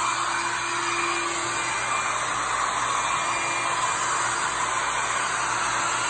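Small handheld hair dryer running steadily, blowing wet acrylic paint across a canvas.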